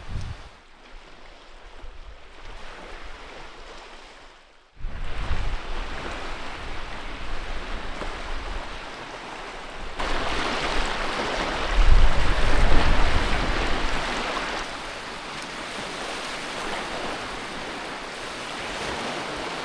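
Strong wind with lake waves washing on the shore, gusts rumbling on the microphone. The sound jumps abruptly in level a few times, loudest in the middle.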